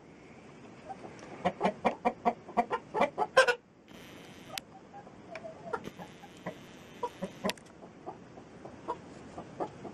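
Hens clucking: a quick run of short clucks for about two seconds, then scattered single clucks.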